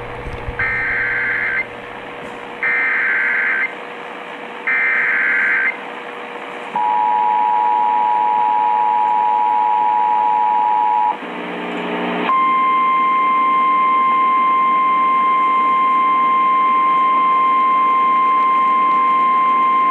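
Emergency Alert System signal received over AM radio with static: three short bursts of digital header data, then the two-tone attention signal for about four seconds, then after a brief break a single long steady alert tone. A faint steady hum runs underneath.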